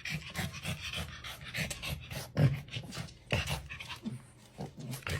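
Dog panting in quick, repeated breaths.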